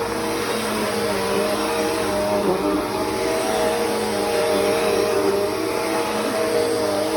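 Bissell CleanView 3536 vacuum cleaner running while vacuuming: a steady motor hum over a rushing hiss of air, the pitch wavering only slightly.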